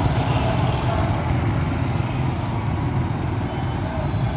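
Road traffic noise: a steady low rumble of vehicle engines running.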